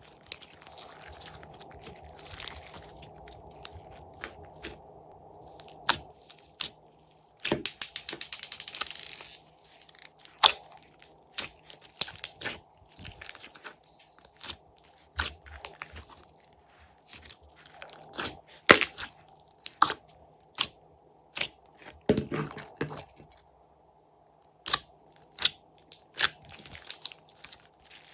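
Slime being kneaded and squeezed by hand, giving off irregular sharp wet clicks and pops of trapped air, with a fast crackling run about eight seconds in.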